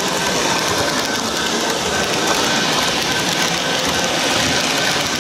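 HO-scale model autorack cars rolling past close by, their small metal wheels on the rails making a steady, dense rattling clatter.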